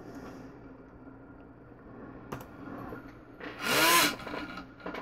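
Small electric motor and propeller on a pendulum arm spinning up and back down in one surge about three and a half seconds in, its pitch rising then falling, as the PID controller drives the arm to a new position. A few faint keyboard taps and a click come before it.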